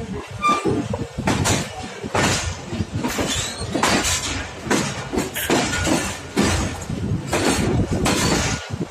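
Passenger train running at speed, heard from an open coach doorway: wheels clattering irregularly over rail joints over a continuous rushing track noise.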